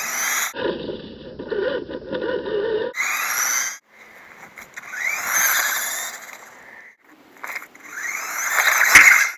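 Lego 4x4 RC rally car's hobby RC motor and plastic gear drivetrain whining at high pitch, rising as it speeds up, in several short runs broken by cuts. One stretch early on is a lower, rougher rumble instead. A sharp knock near the end is the loudest moment.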